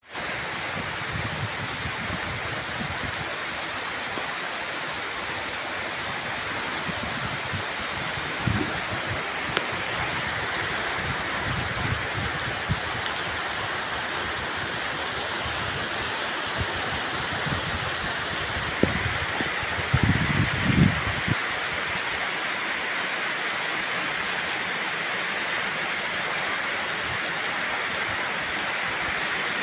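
Heavy rain falling steadily, mixed with the rush of a swollen, muddy flood stream. A few low thumps on the microphone, the loudest about twenty seconds in.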